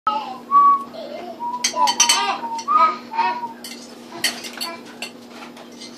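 Clinking and scraping of a utensil against a bowl and frying pan as beaten eggs are poured into the pan. There are several short high-pitched squeaks in the first half, over a steady low hum.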